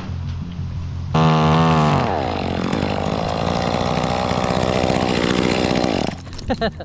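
Chainsaw idling, then revving hard about a second in; its pitch drops as it bites into a tree limb and it runs under load until about six seconds in, when it falls back to idle.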